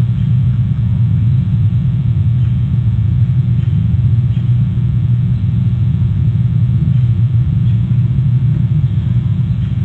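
Steady low rumble from the outdoor nest camera's microphone, with no clear animal calls above it.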